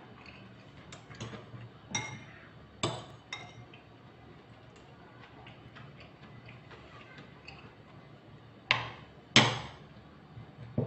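Metal spoon knocking against a ceramic bowl: a few light scattered clicks, then two louder clinks with a brief ring about nine seconds in and one more at the very end.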